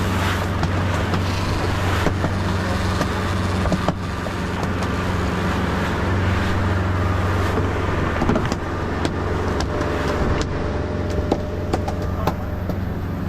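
Fishing boat's engine running steadily under way, a constant low hum mixed with the rush of wind and water past the hull.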